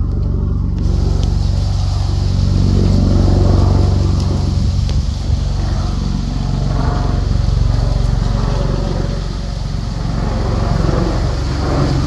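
Airbus Helicopters H130 flying overhead: the rapid, steady beat of its main rotor with a high whine above it. It dips slightly about nine seconds in, then swells again.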